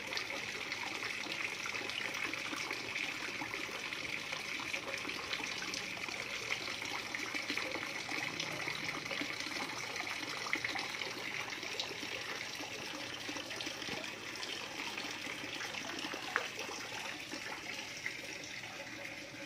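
Water trickling and splashing steadily into a small fish pond, with a few faint clicks.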